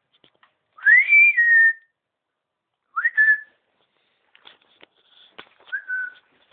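A person whistling three short notes: a rising note that dips and holds about a second in, a shorter rising note near the middle, and a brief lower note near the end. Faint clicks sound between them.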